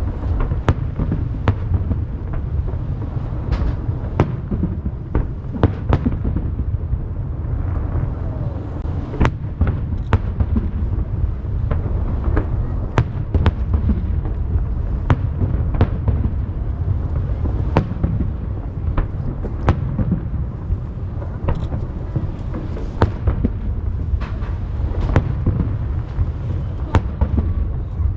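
Fireworks display over the sea: a rapid, irregular series of sharp shell bursts over a continuous low rumble. The booms echo off the hills that ring the bay.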